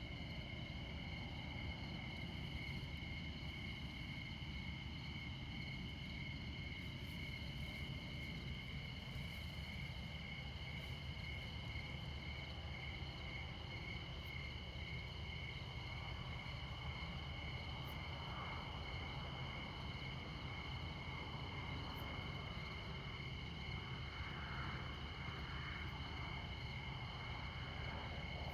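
Crickets chirping in a steady, pulsing chorus at several pitches at once, over the low, constant rumble of distant interstate highway traffic. Faint tyre noise from passing vehicles swells a little in the second half.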